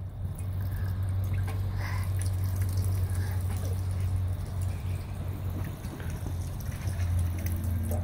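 Water jetting from a push-button drinking fountain, splashing and trickling into its stainless-steel bowl, over a steady low hum.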